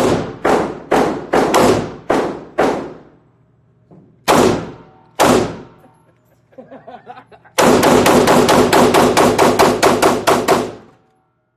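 Semi-automatic pistol fire on an indoor range: about eight quick shots in under three seconds, then two single shots about a second apart. From the middle to near the end comes a fast, even string of about twenty shots in three seconds.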